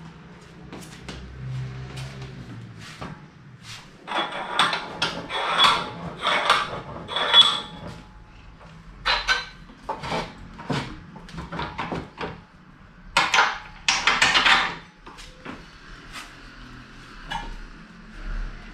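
Knocks and rattles of wood and metal as a wooden bar is handled and fitted on the frame of an upright rug loom, busiest about four seconds in and again about thirteen seconds in.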